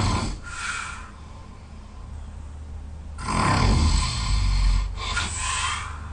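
A person snoring loudly in their sleep. One snore trails off at the start, followed by a quieter breath, then a long rasping snore begins a little over three seconds in and fades near the end.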